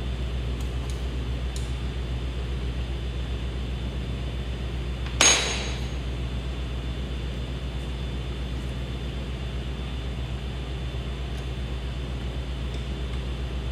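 A single sharp metallic clink with a brief ring about five seconds in, over a steady low hum; a few faint light clicks come in the first two seconds.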